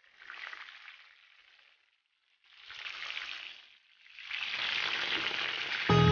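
Cornstarch-coated cabbage rolls sizzling as they fry in oil in a pan. The sizzling comes in three stretches with short breaks between them, and the last stretch is the loudest. Music cuts in loudly just at the end.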